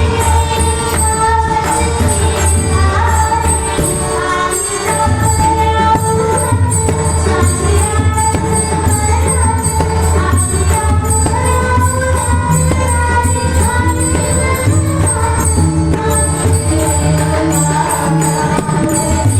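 Marathi Varkari bhajan: a woman singing a devotional melody accompanied by pakhawaj and tabla drums and steady jingling metal percussion.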